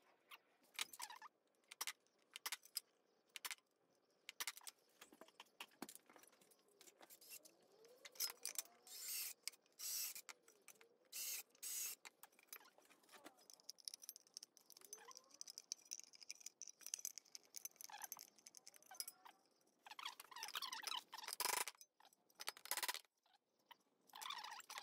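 Faint clicks, taps and scrapes of sheet-aluminium parts being handled and worked on a steel workbench, with a steady high whine for several seconds in the middle.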